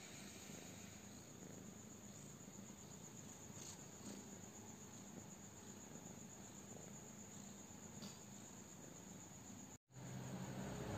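Faint, steady high-pitched chirring of crickets in the background over quiet room tone. Near the end the sound cuts out for a moment and comes back with a louder low rumble.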